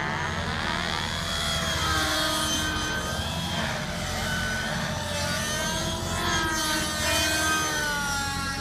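Radio-controlled helicopter flying, its rotor and drivetrain whine rising and falling in pitch as it manoeuvres.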